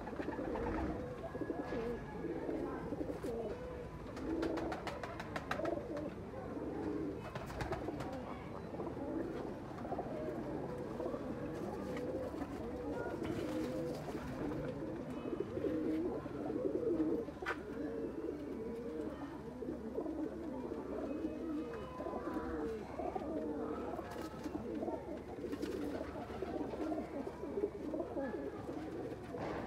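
Several domestic pigeons cooing together: steady, overlapping low coos from the flock, with a few faint clicks.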